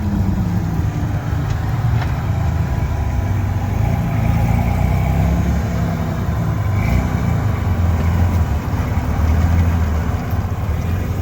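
Car engines running as vehicles roll in: a steady low rumble.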